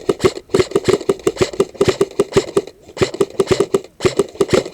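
Airsoft gun firing rapid strings of shots, about ten sharp clacks a second, in three bursts with brief pauses between them.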